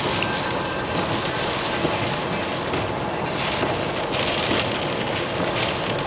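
Steady rumble and hiss of rain and wind heard from inside a car, likely moving on a wet road, with the hiss swelling a few times as gusts or spray hit.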